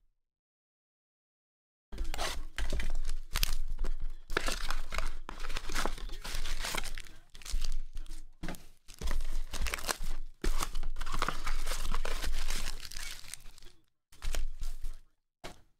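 Cardboard trading-card boxes being torn open and foil card packs crinkling as they are pulled out and handled: dense, irregular tearing and crackling. It is silent for the first two seconds and starts suddenly.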